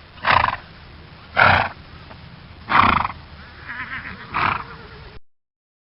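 Horse neighing in a series of short calls about a second apart, four loud and one softer near the end, before the sound cuts off.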